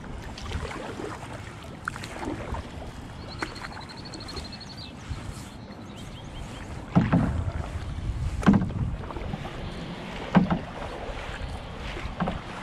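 Solo paddling in an Old Town Penobscot 164 canoe: paddle strokes and water splashing and lapping against the hull, with wind buffeting the microphone. Four louder knocks or splashes come in the second half.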